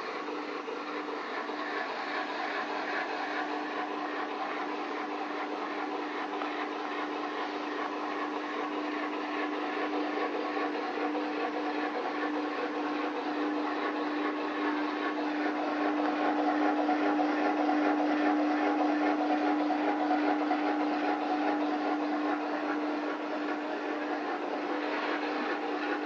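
A machine running steadily, with a constant hum over an even whirring noise that grows slightly louder past the middle.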